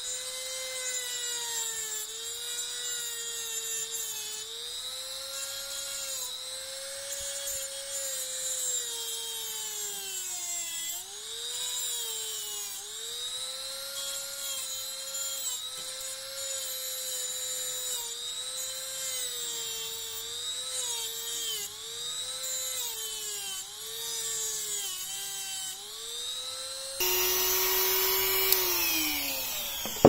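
Handheld rotary tool with a cut-off disc cutting a metal rod: a high motor whine that sags in pitch each time the disc bites into the metal and then recovers. Near the end it turns louder and harsher, with a hissing grind, while the pitch falls away, and a sharp clunk comes at the very end.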